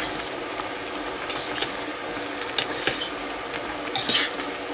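Metal spoon stirring chicken macaroni soup in a stainless steel pot, clinking and scraping against the pot a few times over a steady simmering hiss. The loudest scrape comes about four seconds in.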